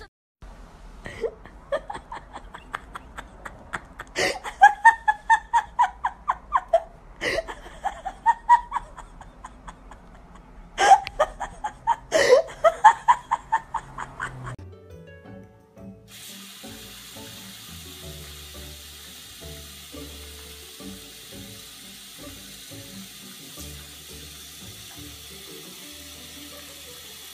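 A person laughing in repeated bursts for about the first half. Then a water tap running steadily into a sink, with faint music underneath.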